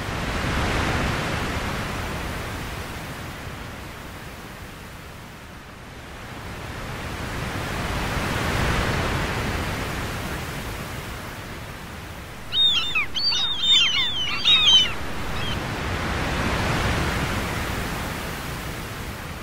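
Sea waves breaking and washing up a beach, swelling and fading about every eight seconds. A little past halfway a bird chirps rapidly for about two seconds.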